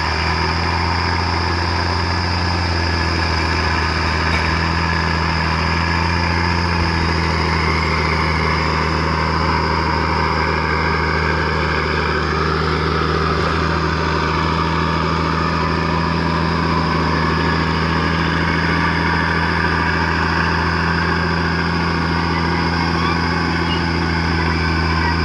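Komatsu D50A crawler bulldozer's diesel engine running steadily, with a constant low drone and a high, thin whine above it.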